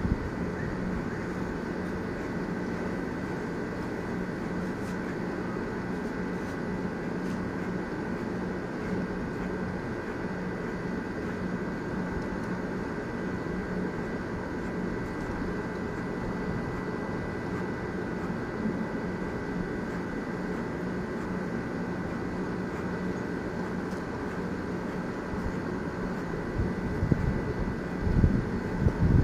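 Corded electric hair clipper running steadily as it cuts hair. Near the end, a few louder low thumps and rumbles.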